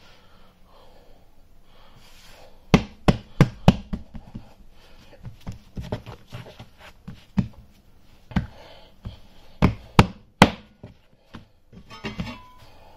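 Hands working a large piece of bread dough on a floured work surface: a run of sharp knocks, four in quick succession about three seconds in and more scattered later, as the dough and hands strike the board, with faint rubbing between.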